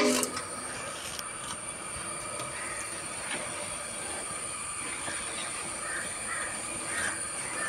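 A pot of rice boiling hard on a gas burner makes a steady hiss, with a faint high whine over it. A metal clank dies away right at the start, and crows caw several times in the background from a few seconds in.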